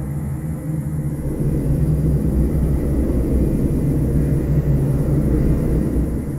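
A low rumbling drone over a steady deep hum, swelling about a second in and easing off near the end.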